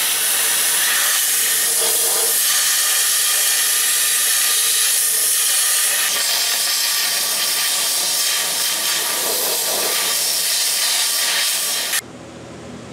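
Compressed-air blow gun hissing steadily as it blows machining debris out of the bolt holes and passages of a Chevy 350 cast-iron engine block; the hiss cuts off suddenly near the end.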